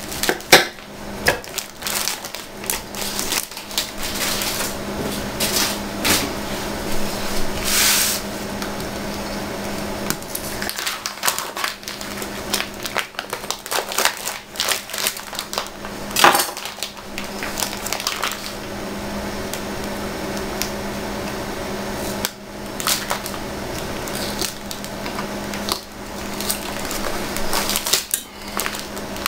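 Irregular knocks, scrapes and clicks of a knife cutting pork back ribs into portions, with rustling of the plastic wrap and clatter of pieces going into a metal pot, over a steady low hum.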